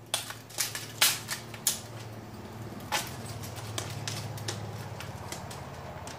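Handheld can opener being clamped onto the rim of an aluminium beer can and worked around it to cut off the lid: several sharp clicks and clacks in the first two seconds and another about three seconds in, then a steady low grinding.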